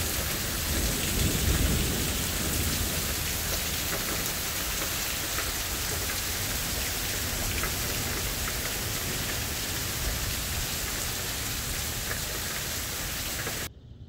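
Heavy rain pouring down steadily, with a low rumble of thunder swelling about a second or two in. The rain cuts off abruptly near the end.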